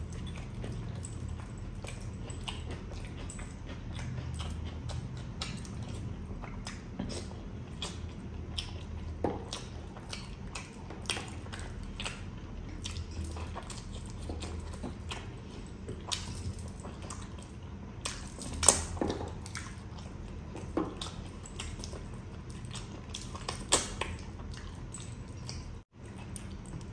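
Eating by hand: wet chewing and lip-smacking on mutton curry, chicken and biryani, with many short sharp mouth clicks and a few louder smacks, about two-thirds of the way through and again near the end.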